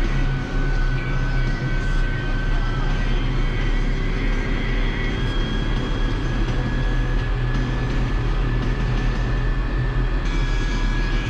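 Case MX120 tractor's diesel engine running steadily under load, heard from inside the cab, with a steady high whine over the engine note.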